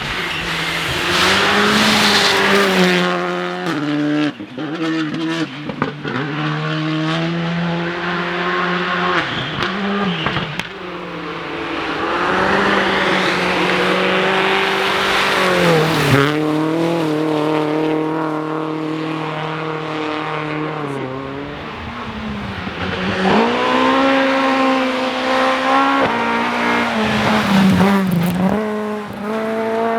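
Rally car engine driven hard on a special stage, its pitch climbing under full throttle and dropping sharply at gear changes and lifts several times, with tyre and road noise underneath.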